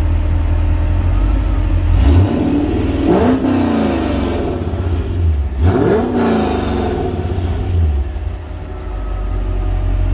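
Corvette Grand Sport's LS3 V8, with long-tube headers, X-pipe and Corsa cat-back exhaust and no catalytic converters, idling, then revved quickly twice, about two seconds in and again about halfway through, each rev falling back to idle.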